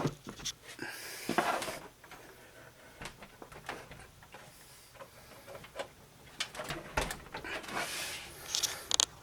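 Scattered light clicks, taps and rustles of hands handling hardware at close range, with a quieter stretch in the middle.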